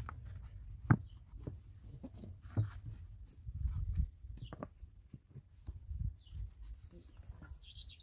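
Stones knocking and scraping as they are wedged around the base of a wooden post, a few sharp knocks, the loudest about a second in. A short high chirping near the end.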